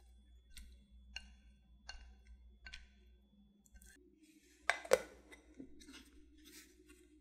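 Silicone spatula tapping lightly against a glass bowl, roughly once a second, as custard cream is scraped into it. A little over halfway through comes a single louder knock as a lid is set on the bowl, followed by faint rubbing as it is pressed down.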